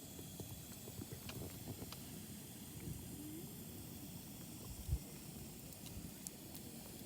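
Small wood fire in a fire pit crackling, with scattered faint pops over a low rumble, and one louder low thump about five seconds in.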